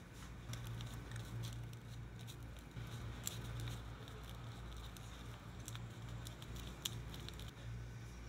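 Small handling sounds of paper crafting: soft rustles and taps as glue is applied to a torn piece of white paper and pressed onto a kraft-paper journal page, with a few sharper clicks. A low steady hum runs underneath.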